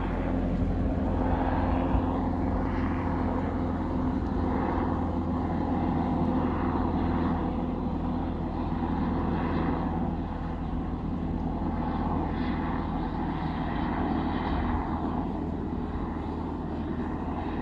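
Helicopter flying overhead: a steady drone of rotor and engine, with a low hum and a hiss that swell and fade every second or two.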